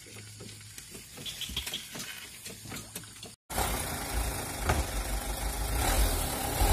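Light truck's engine idling steadily, growing a little louder near the end, after a few faint clicks in a quiet first half.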